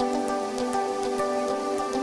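Intro music: held chords over a light, even ticking beat.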